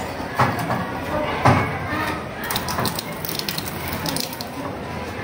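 Tap water running into a glass graduated cylinder, filling it to a set mark, starting about two and a half seconds in. Before it, two knocks of the glass, about half a second and a second and a half in.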